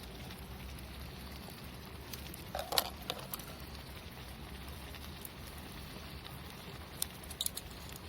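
Campfire crackling, with a few sharp pops in two short clusters over a steady low background.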